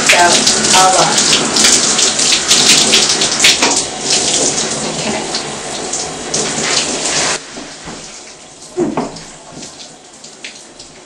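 Handheld shower head spraying cool water onto and through wet hair for the final rinse after conditioning, a steady hiss and splatter that cuts off suddenly about seven seconds in.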